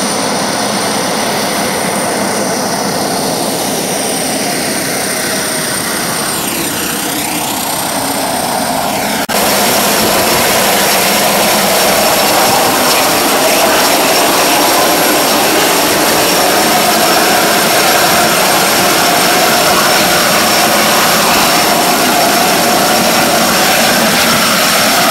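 Twin-engine turboprop aircraft running: a steady engine and propeller noise with a high turbine whine over it. About nine seconds in it becomes suddenly louder and closer, beside the running aircraft.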